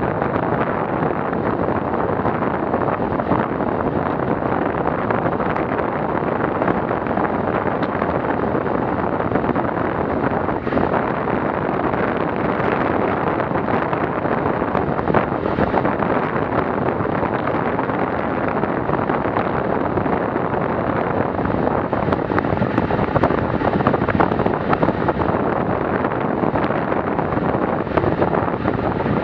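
Steady wind rush on an action camera's microphone on a bicycle riding at about 45 km/h, mixed with tyre noise on the asphalt.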